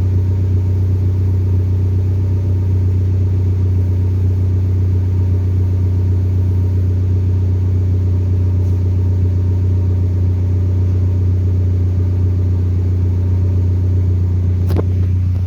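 Stock Honda Civic LX's D17 1.7-litre four-cylinder engine and exhaust running at a steady speed, with a single short click near the end.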